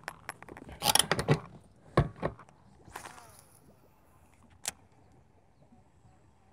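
Handling noises on a bass boat's deck: a quick run of clicks and knocks with short rustling bursts, a thump about two seconds in, a softer swish around three seconds, and one sharp click near five seconds, as fishing gear is handled and a cast is made.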